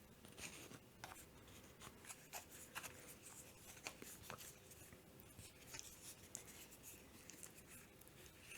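Faint close-miked eating sounds of mushroom carbonara: scattered small wet clicks and soft smacks of chewing, over a low steady background hum.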